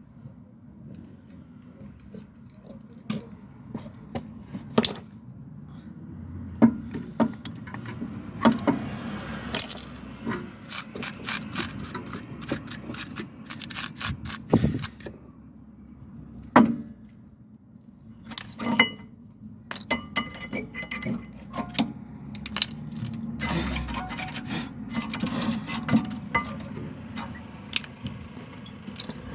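Hand tools and metal parts clinking, knocking and scraping irregularly, with a low steady hum underneath.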